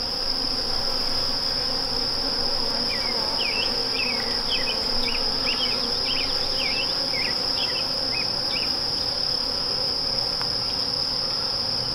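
Honeybees buzzing around an open hive, a steady low hum, under a continuous high-pitched insect drone. Short faint high chirps come and go through the middle.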